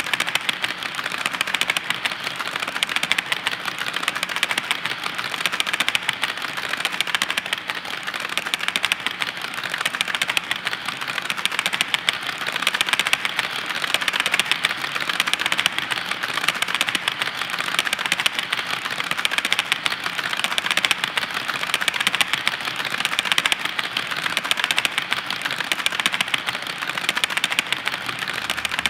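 Long string of HO-scale coal hopper cars rolling past on model railroad track: a steady, dense clatter of small wheels clicking and rattling on the rails.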